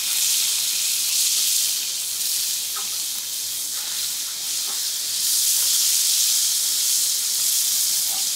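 Strips of soy-marinated sirloin sizzling as they sear in olive oil in a frying pan over a very high flame: a steady, high hiss.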